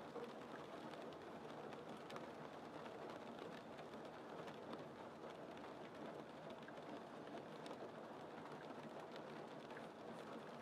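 Light rain falling, with scattered drops ticking faintly on window glass in an even, steady hiss.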